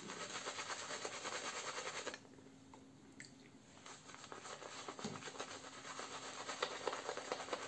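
Synthetic shaving brush scrubbing lather onto a dry, stubbled face: quick, scratchy rubbing strokes that pause for about two seconds, then start again.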